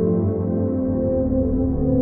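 Ambient music: slow synthesizer pads with long sustained, overlapping tones that shift pitch gradually, with a deep bass entering about a second in.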